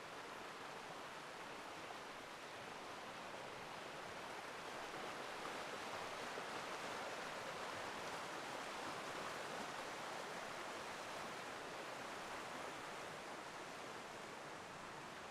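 Stream water rushing and cascading in a steady hiss, swelling slightly in the middle.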